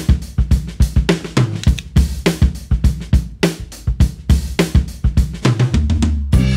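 Background music with a steady drum-kit beat, kick, snare and hi-hat.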